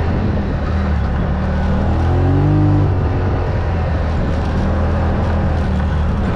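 Off-road vehicle's engine running steadily as it drives a dirt trail, revving up briefly about two seconds in, then easing back.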